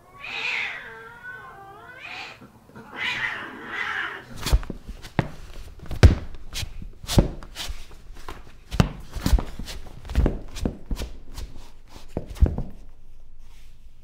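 A cat yowling in two long, wavering meows, followed by a run of irregular sharp knocks that stop about two seconds before the end.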